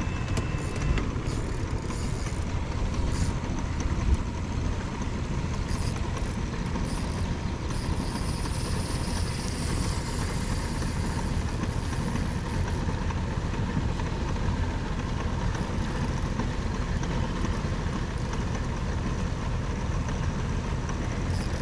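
Steady low rumbling rush aboard a small boat on a fast river, with a faint steady whine over it and a single knock about four seconds in.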